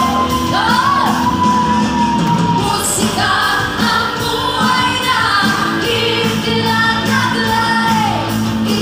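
Live pop-rock band with electric guitar and keyboard, and two women belting long, high held notes with vibrato over it.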